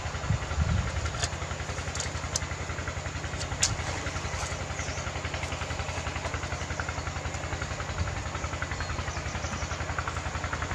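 A small engine running steadily with a fast, even low pulse, with a few light clicks over it in the first few seconds.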